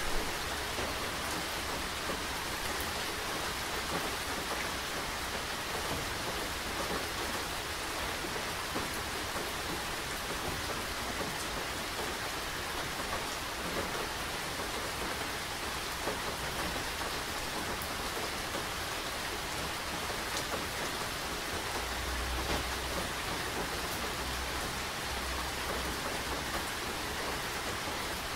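Steady rain pattering on a surface, a dense even hiss of drops. A low rumble comes twice about three-quarters of the way through.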